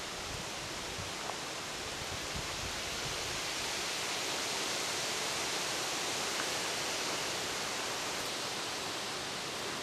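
Steady rushing of flowing water over stones, swelling slightly midway, with a few faint low bumps in the first few seconds.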